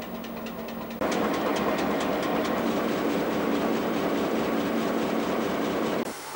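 Australian National GM-class diesel locomotive idling at the station: a steady engine hum with regular ticking. About a second in it jumps much louder and denser, heard close beside GM7-E, then drops off suddenly near the end.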